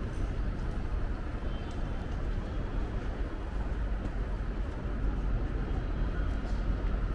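Steady city street ambience, a low rumble of passing traffic.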